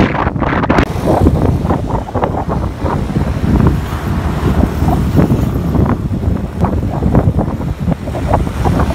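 Loud wind buffeting the microphone on a moving motorbike, in irregular gusts, with road and engine noise underneath.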